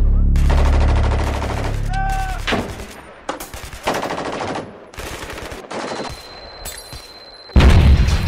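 Machine-gun fire in repeated bursts that start and stop sharply, over a low rumble in the first couple of seconds, with a brief whistling tone about two seconds in. A heavy boom hits near the end.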